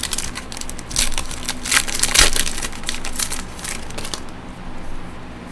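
Crinkling of a foil trading-card pack wrapper and rustling of the cards as they are handled: a run of quick crackles and rustles that dies away about four seconds in.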